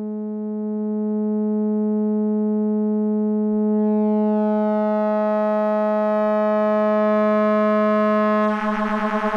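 Noise Engineering Virt Iter Legio digital oscillator in its Bass algorithm, sounding one steady held pitch. Its tone grows brighter and buzzier as a knob is turned, and about a second before the end it turns rough and pulsing.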